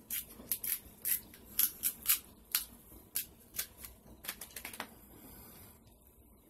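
Crisp, irregular cracks and snaps of king crab leg shell being broken apart and picked open by hand, several a second for about five seconds, then it quietens.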